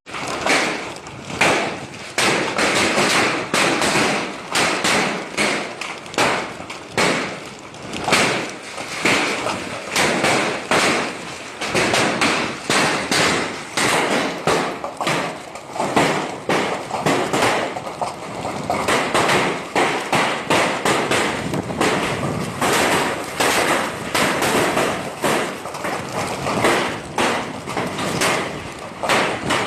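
Hailstones pelting down on hard surfaces in a hailstorm: a loud, dense, irregular clatter of countless small impacts that swells and eases every second or so.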